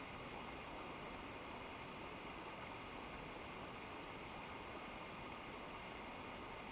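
Steady rushing of mountain river water, an even hiss with no breaks or separate sounds.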